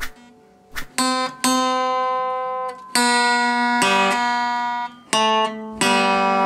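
Acoustic guitar strummed slowly, one chord at a time, each left to ring for up to a couple of seconds before the next. A couple of short clicks come just before the first strum.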